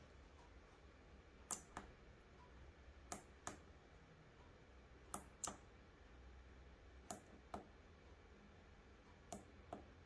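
Small tactile push buttons on a breadboard button module clicking as they are pressed and released: five double clicks, about two seconds apart.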